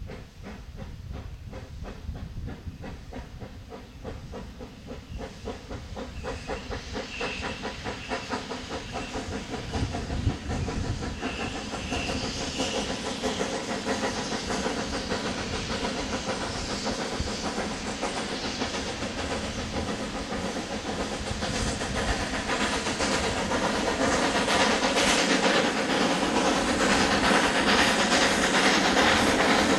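Mallet tank steam locomotive hauling a freight train, its exhaust chuffing in a steady rhythm with hissing steam. The sound grows steadily louder as the engine approaches.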